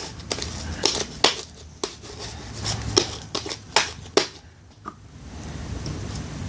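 Sticky clear-glue slime being worked by hand, giving a run of sharp, irregular clicks and pops that stop a little past four seconds in.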